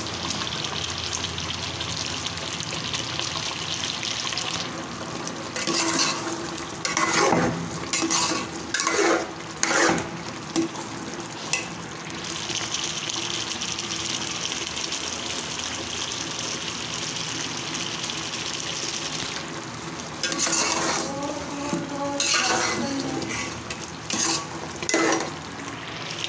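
Chicken and its cooking liquid sizzling and bubbling hard in a pot as the water boils off. A spoon stirs and scrapes against the pot in two spells, about five seconds in and again near the end.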